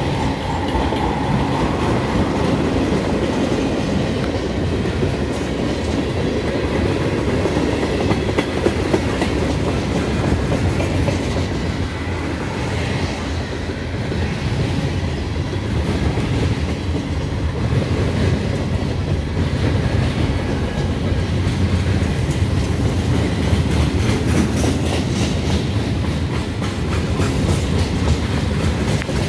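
Freight cars (flatcars, tank cars and boxcars) rolling slowly past at trackside: a steady rumble of steel wheels on rail with repeated clicks from the wheels over the track, more of them near the end.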